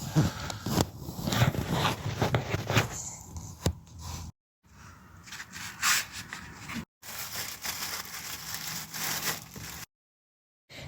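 Handling noise of plastic dashboard parts: irregular rubbing and scraping with scattered clicks as the instrument cluster is worked out of the dash, broken by a few short dead-silent gaps.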